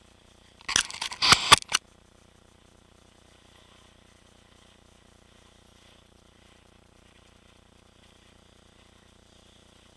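A burst of sharp, crackling knocks about a second long, starting just under a second in, then only a faint steady hiss.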